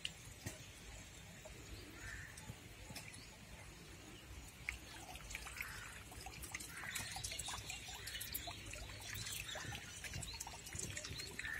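Faint outdoor ambience: water trickling, with scattered bird chirps and light clicks.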